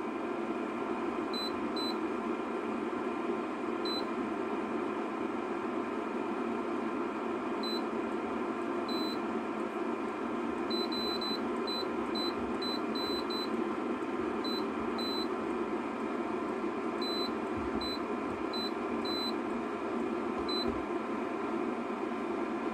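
Portable induction cooker's control-panel buzzer giving many short, high, identical beeps at irregular intervals, some in quick runs, as its touch buttons are pressed while it shows an error code. Underneath is the steady whir of the cooker's cooling fan.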